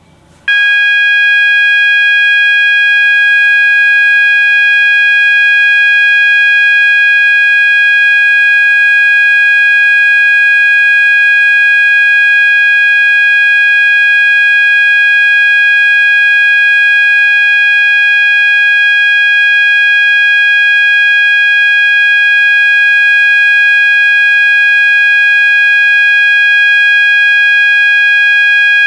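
System Sensor MASS12M sounder-only notification alarm sounding a loud, steady continuous tone that switches on about half a second in.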